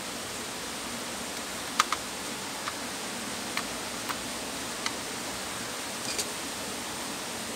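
Scattered light clicks and taps of hands handling a laptop's motherboard and plastic case parts, about seven in all, the loudest a quick double click about two seconds in, over a steady background hiss.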